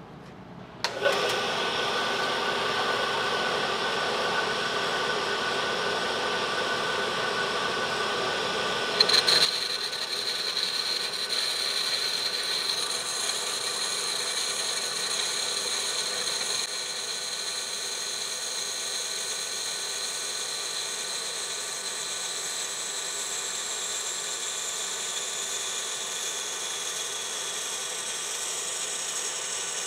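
Harbor Freight horizontal/vertical bandsaw fitted with a diamond blade, cutting through a glass bottle. The saw starts about a second in and runs steadily. A brief loud burst comes about nine seconds in, after which a steady high whine rides over the running saw.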